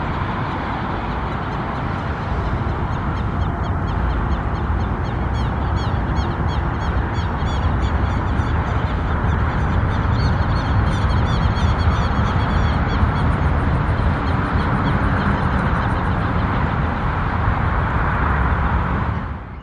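Boeing 737-800's CFM56-7B jet engines rumbling as the airliner touches down and rolls out along the runway. The rumble grows louder over the first dozen seconds, then holds steady. Birds call in quick, repeated chirps over it through the middle stretch.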